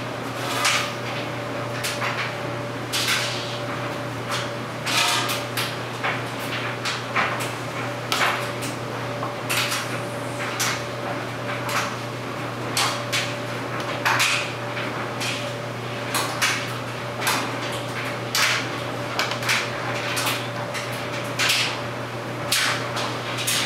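Clothes dryer running, its drum turning with a steady low hum and a faint steady tone, while the tumbling load knocks and clinks irregularly against the drum.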